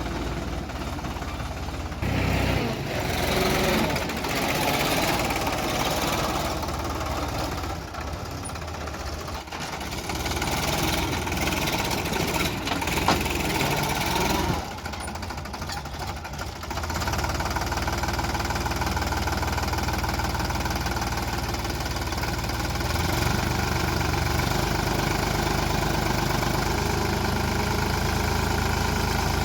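Diesel engine of heavy machinery running under work, its note changing with loud, noisy passages for the first half, then settling into a steady, even run from about seventeen seconds in.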